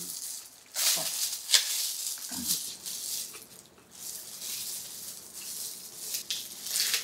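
Rustling and crinkling with several sharp clicks, as food and its wrapping are handled while eating, with a short low murmur about two and a half seconds in.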